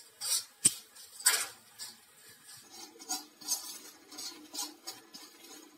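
Perforated metal ladle scraping and clinking against a stainless steel kadai as a spice masala is stirred and roasted in oil. The strokes come irregularly, louder in the first second and a half and lighter after that.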